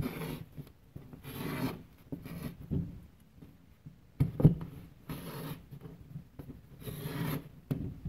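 Pencil lead of a drawing compass scraping across the paper face of a drywall sheet as it is swung round to draw circles, in several short strokes. A sharp click about four and a half seconds in.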